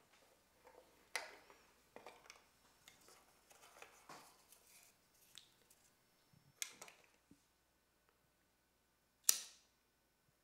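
Scattered small clicks and taps, then near the end a single sharp strike with a short fading hiss: a cigarette lighter being struck to light a cigarette.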